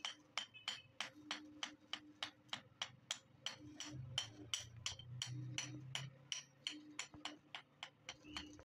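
Hand hammer beating a red-hot axe head on a steel anvil: an even run of sharp metal-on-metal blows, about four a second, over a faint low hum.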